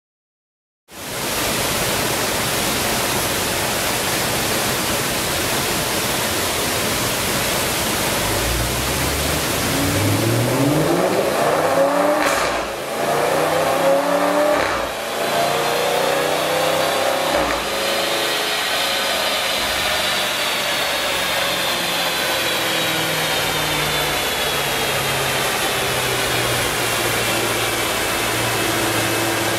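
Audi RS5's V8 on a chassis dyno with an aftermarket HMS exhaust, over the steady rush of the dyno's cooling fan. About eight seconds in, the revs climb hard through the gears, with short breaks about 12 and 15 seconds in. A high whine then rises and falls as the engine winds down to a low steady run near the end.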